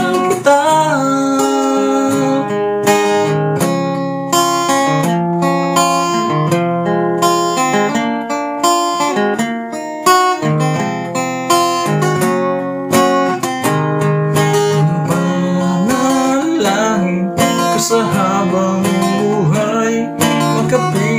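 Acoustic guitar being strummed and picked in an instrumental interlude of a slow ballad, with the chords changing every second or so.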